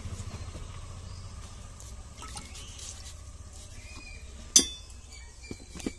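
Spice powder and a cupful of ingredients being dropped into a steel pot of tamarind water, over a low steady hum. A single sharp click about four and a half seconds in is the loudest sound, with a smaller one near the end.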